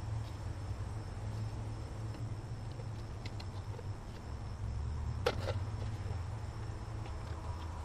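Steady high insect drone over a low outdoor rumble, with one sharp knock about five seconds in.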